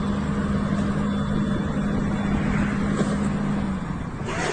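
Motor vehicle engine running steadily with a constant hum; near the end the hum drops away and a rougher, brighter noise takes over.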